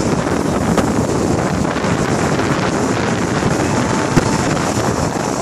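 Wind buffeting the microphone over the wash of small breaking surf waves, a steady loud rumbling rush.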